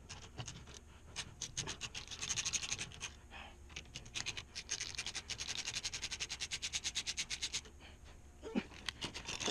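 Ratchet wrench with a socket extension clicking in quick, even runs as a bolt is worked, a long run about a second in and a longer one from about four seconds to near eight seconds.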